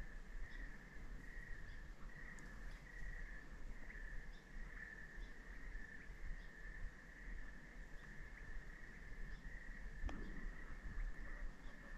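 Crickets chirping in a steady, pulsing chorus, faint under a low rumble, with a single sharp click about ten seconds in.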